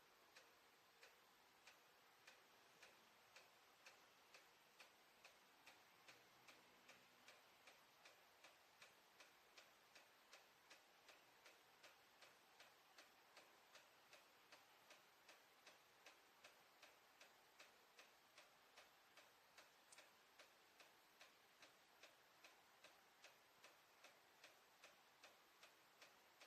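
Faint, regular ticking from the plumbing shaft above a bathroom ceiling, about two ticks a second. It goes on even with no water in use, and no drip or leak is visible at the access hatch, so the cause is unknown.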